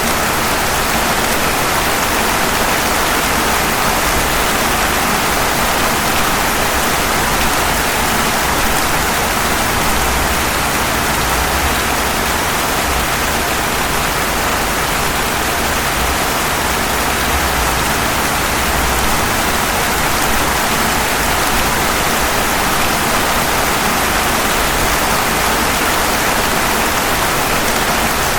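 Steady rain falling on pavement, a dense, even hiss with no single drops standing out.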